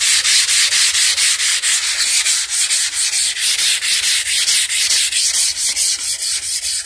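180-grit sandpaper on a hand sanding block rubbed quickly back and forth over a car body panel in 2K primer dusted with guide coat, about five or six strokes a second. Light-pressure block sanding that knocks the texture off the primer to get the panel flat.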